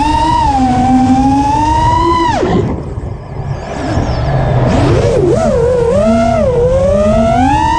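Brushless motors and props of a 5-inch FPV quadcopter (Brother Hobby Returner R4 2206 2300KV motors) whining, the pitch swinging up and down with the throttle. The whine cuts off sharply about two and a half seconds in, leaving a quieter hiss as the throttle is chopped, then comes back about five seconds in, wavering before climbing steadily toward the end.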